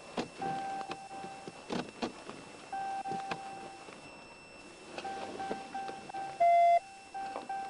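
Electronic beeping: a steady mid-pitched beep sounds in stretches of about a second, then turns into quick repeated pulses about five seconds in, with one louder, lower beep near the end. Scattered light clicks and knocks run underneath.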